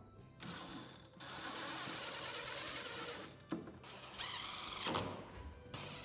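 DeWalt cordless impact driver driving screws that fasten a door closer body to an aluminium storefront header. It runs twice, about two seconds and then about a second and a half.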